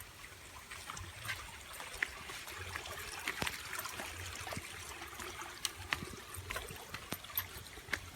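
Stream water trickling, with scattered sharp clicks.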